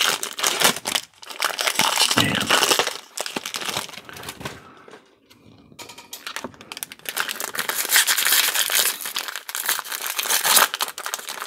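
Foil baseball card pack wrappers crinkling and cards being rustled and handled in a steady run of small crackles, easing off to a lull about halfway through before the rustling picks up again.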